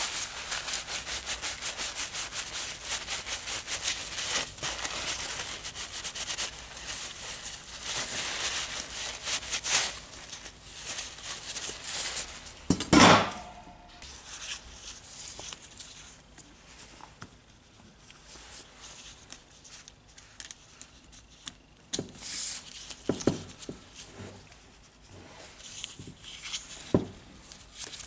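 Paper towel rubbing grease out of a stainless steel parts tray in quick repeated strokes for about ten seconds. About halfway through comes one loud knock with a short ring, then quieter scattered clicks and taps of small metal parts being handled.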